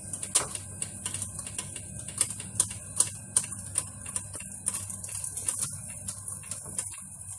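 Irregular light clicks and ticks, about two or three a second, over a steady low hum and hiss.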